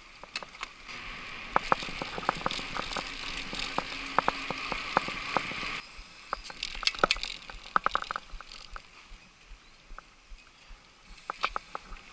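Trek Superfly mountain bike being ridden on pavement, heard from its handlebars: irregular sharp clicks and rattles as it goes over bumps. A steady rushing hiss under the first half cuts off suddenly about six seconds in.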